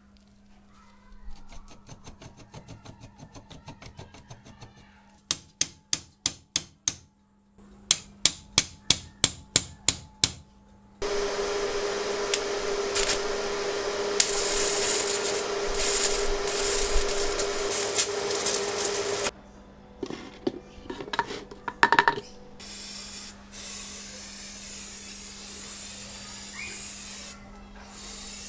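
Workshop restoration sounds in sequence: two runs of sharp metallic clicks, then about eight seconds of loud steady machine noise with a held tone, a few more clicks, and from about two-thirds of the way in a steady hiss of a powder-coating spray gun.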